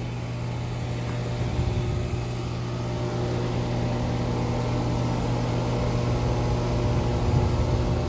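Carrier heat pump outdoor unit running steadily just after start-up, its compressor and condenser fan giving a constant low hum.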